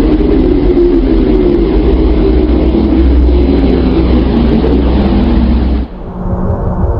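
Rumbling, noisy space-sound drone presented as a planet's sound, heavy in the low end. About six seconds in it cuts off abruptly and gives way to a duller, more muffled droning tone.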